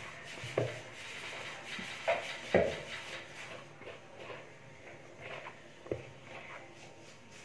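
A hand kneading and squeezing soft, buttery shortbread dough in a plastic bowl: continuous soft rubbing and squelching, broken by four sharp knocks, the loudest pair about two seconds in and another near six seconds.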